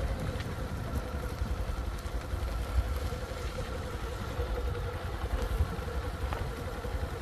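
A steady motor hum with a low rumble underneath.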